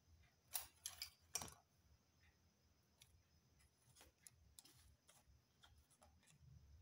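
A few faint clicks and taps from handling the drawing paper and pencils: three sharper clicks in the first second and a half, then scattered fainter ticks.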